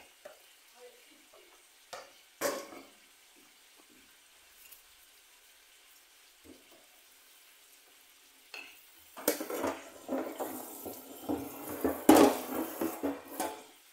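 Kitchenware being handled: a couple of light knocks, then a few seconds of dense, irregular clattering of pots, pans and utensils near the end.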